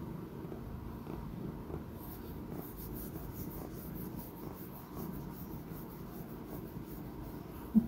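A hand stroking a Persian chinchilla cat's long fur close to the microphone, a scratchy rustling of repeated strokes, over the cat's low, steady purring. A brief loud bump near the end.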